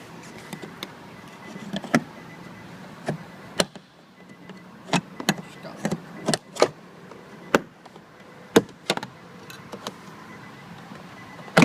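Sharp, irregular plastic clicks and knocks as a car door panel is pried loose with a trim panel puller, its retaining clips popping free one after another.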